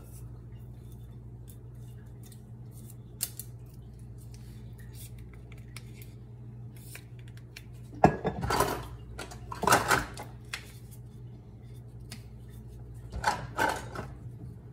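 A new bottle of balsamic vinegar being unsealed and opened by hand: three short bursts of clicking and crackling in the second half.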